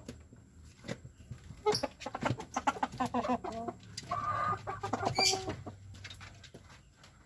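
Kampung (Indonesian native) chickens clucking, with a run of calls between about two and five and a half seconds in, over scattered sharp taps.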